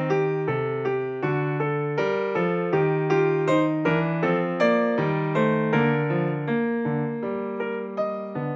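Background piano music: a steady run of notes, each struck and then fading.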